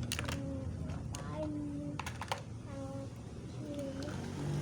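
A handful of sharp clicks and rattles from plastic toy trucks being handled, over a steady low rumble, with a few short voice sounds between the clicks.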